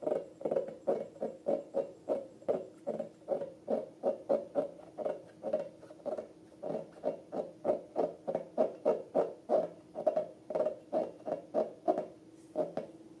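Slime being squeezed and kneaded by hand, giving short wet squelches at about three a second, which stop near the end.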